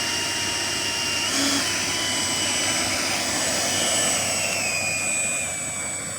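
Electric ducted fan of a foam RC model plane: a high whine over a rushing sound, stepping up in pitch about a second in as the throttle is advanced, then sliding gradually lower over the next few seconds.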